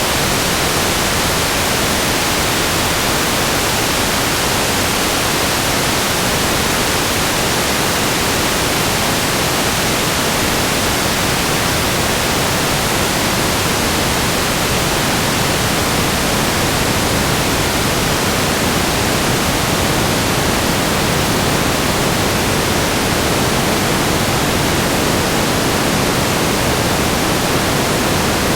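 Steady static noise: an even, unbroken hiss across the whole range, with no changes.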